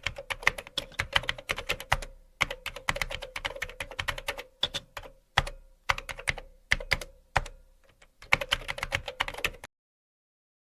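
Typing on a computer keyboard: irregular runs of quick key clicks broken by short pauses, stopping near the end.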